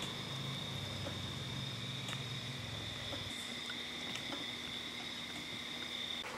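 Insects trilling steadily in the evening, one unbroken high-pitched tone that stops just before the end, over a few faint crackles of a wood campfire. A low hum underneath fades out about halfway through.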